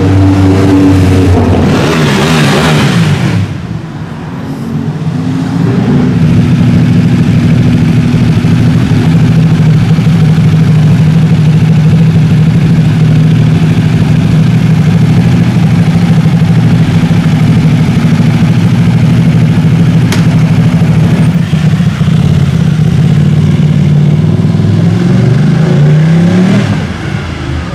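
A loud vehicle passes at the start. Then a Ducati 1199 Panigale's L-twin engine with a Termignoni exhaust idles steadily for about twenty seconds, and revs up as the bike pulls away near the end.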